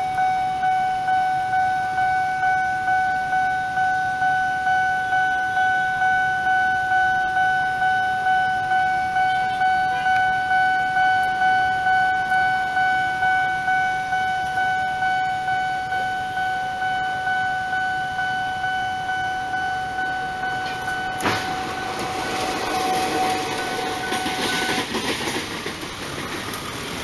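Railroad crossing alarm bell ringing over and over, a steady ding repeating about one and a half times a second. About 21 s in there is a sharp knock, then the noise of an approaching diesel locomotive rises near the end while the bell cuts off.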